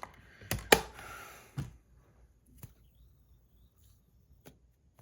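Small metal fidget spinners being handled: a cluster of sharp clicks and knocks with a brief rustle in the first second and a half, the loudest about three-quarters of a second in, then a few single clicks spaced well apart.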